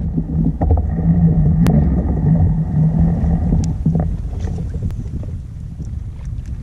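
Low rumbling wind noise on the camera microphone over a kayak on choppy water, with a steady low hum that breaks up through the first half and a few faint clicks.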